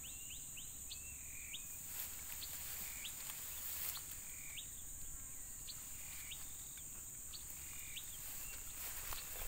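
Open-country ambience: a steady high insect buzz with a bird calling over it in short, repeated whistled notes, about one or two a second.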